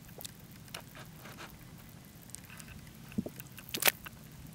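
Mud volcano's crater pool of liquid grey mud, with gas bubbles bursting at the surface in scattered wet pops and plops at irregular times, the loudest cluster near the end.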